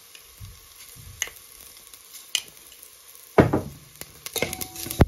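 Hot oil sizzling quietly in a steel pot of tempering with curry leaves and chillies, with a few light ticks. A loud knock with a short ring against the pot comes about three and a half seconds in, as sesame seeds are added.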